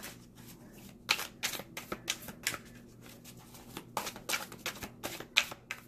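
A tarot deck being shuffled by hand, the cards slapping together in quick clicks: one flurry about a second in and another about four seconds in.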